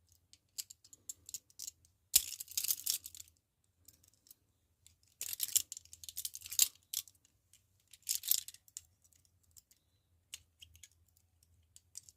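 Two pairs of Peerless 700 chain handcuffs clicking and rattling as a multi-pick hook works in the keyholes: scattered small metal clicks with three bursts of clattering and jangling about two, five and eight seconds in.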